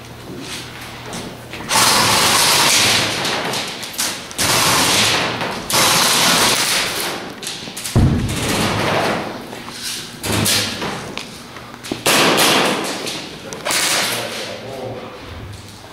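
Repeated bursts of loud rustling and handling noise on a handheld camera's microphone as its holder moves through the arena. Each burst starts suddenly and fades within a second or two, and a single sharp thump comes about eight seconds in.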